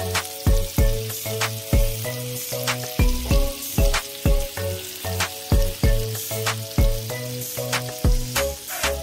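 Lamb chops sizzling and spitting in hot oil in a grill pan, a steady frying hiss. Background music with a steady beat of about two thumps a second plays over it.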